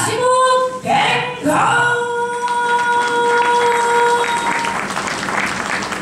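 A ring announcer calls out a wrestler's name, holding the last syllable as one long, steady note for about three seconds. Crowd applause builds underneath and takes over near the end.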